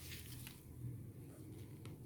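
Faint steady low hum of background ambience with a few soft clicks.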